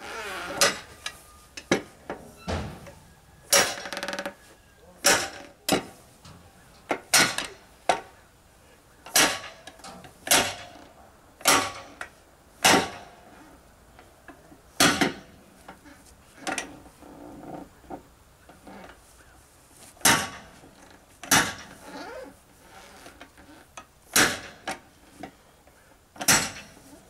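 A long steel bar driven down again and again between an old Firestone tractor tire's bead and its steel rim, breaking the bead loose to knock the tire off the rim. About twenty sharp blows, each ringing briefly, come roughly one a second with a few short pauses.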